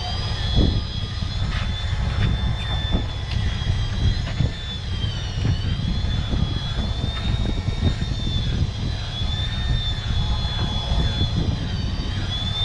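Fishing boat's engine running: a steady low rumble with a high whine above it that wavers slightly in pitch.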